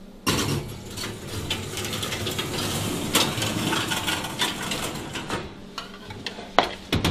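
Glass casserole dish set onto a wire oven rack and the rack pushed in: metal rattling and scraping with many small clicks for about five seconds, then a couple of sharp knocks near the end.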